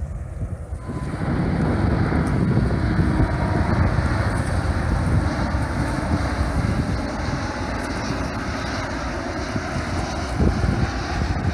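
Jet airliner's engines running as it passes low, a steady, loud roar with wind buffeting the microphone.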